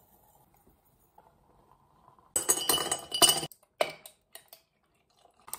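Ice cubes clattering into a glass jar: a dense clinking rattle of about a second, then a few separate clinks of ice against glass.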